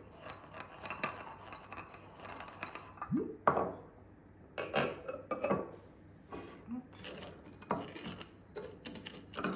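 Glass tumblers knocking and scraping against ceramic dishes as their rims are dipped in syrup and pressed into sugar: a series of separate clinks and rubs, the loudest about three and a half seconds in.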